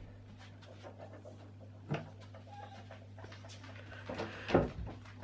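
A small child working an interior door handle and opening the door, with a sharp latch click about two seconds in and a short louder squeak and knock near the end, over a steady low electrical hum.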